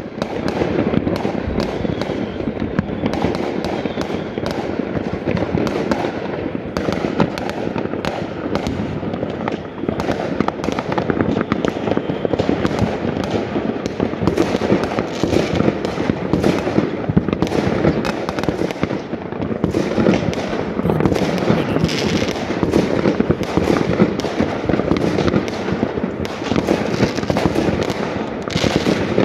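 Many fireworks going off at once across a town, a continuous barrage of overlapping bangs and crackles with no let-up.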